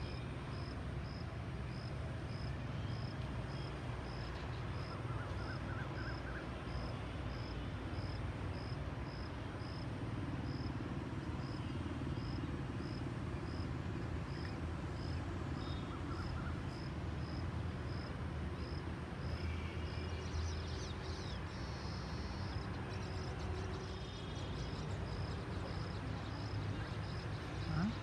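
Outdoor ambience: a steady low rumble under a high, short chirp that repeats evenly about every 0.7 seconds, like an insect. A few brief bird chirps come in about twenty seconds in.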